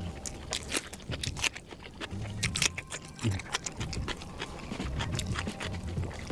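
Close-up mouth sounds of someone eating grilled eel: chewing with many quick, sharp smacks and clicks.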